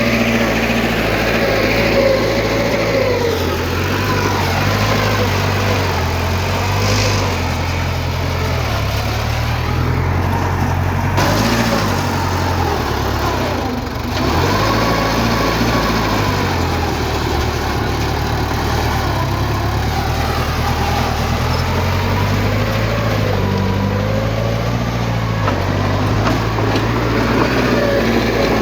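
Diesel engine of heavy earthmoving machinery running under changing load, its pitch rising and falling. The level dips briefly about fourteen seconds in.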